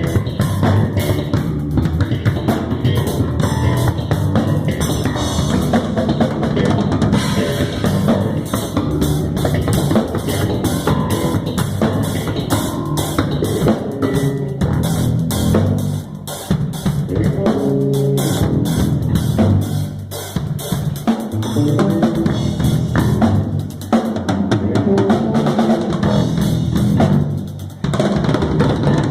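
Drum kit and electric bass playing a groove together, with busy kick, snare and rimshot strokes over a moving bass line, a warm-up jam.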